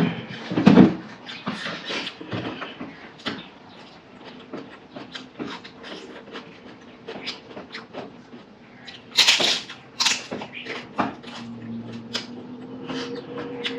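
Close-miked eating: irregular wet chewing and mouth clicks, with a louder knock about a second in and a louder crunchy rustle around nine seconds in. A steady low hum comes in near the end.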